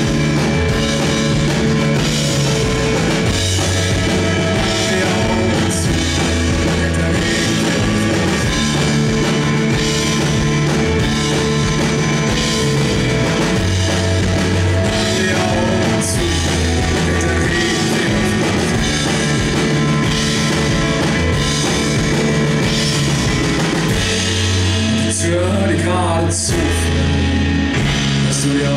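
Live band playing a piano-led rock song: drum kit with cymbals, keyboards and bass. The cymbals drop out for a moment near the end.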